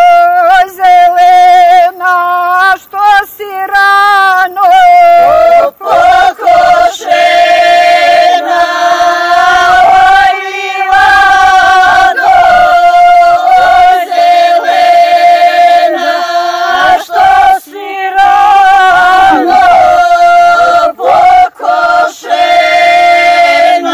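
Women's folk group singing a traditional Serbian village song unaccompanied. The voices sing long held notes, broken by short pauses for breath.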